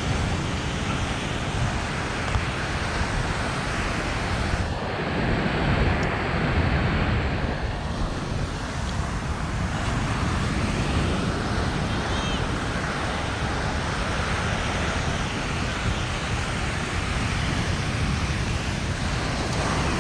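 Steady mixed outdoor noise of ocean surf, road traffic and wind buffeting the microphone, with no single event standing out.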